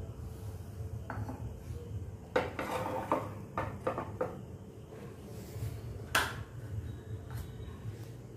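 Metal kitchenware knocking and clinking against a pan of boiling water, in a cluster of sharp knocks about two to four seconds in and one more near the end, over a steady low rumble.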